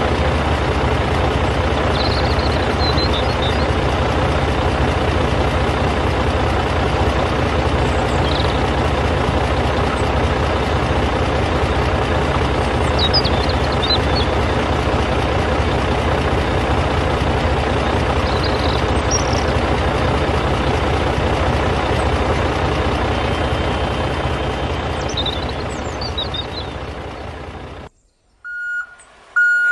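A vehicle engine running steadily, fading out over the last few seconds and stopping. Birds chirp faintly a few times over it.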